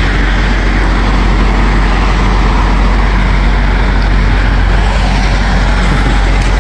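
Heavy diesel truck engine idling: a steady, even low rumble.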